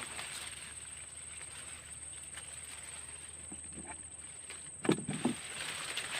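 Faint outdoor background with a thin steady high whine, broken about five seconds in by a brief cluster of dull knocks.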